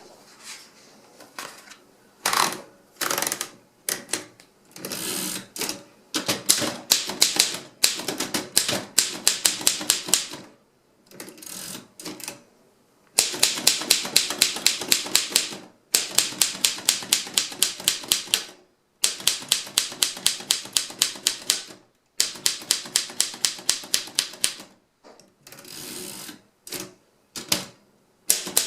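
Royal 10 manual desktop typewriter being typed on: runs of quick key strikes, several a second, broken by short pauses.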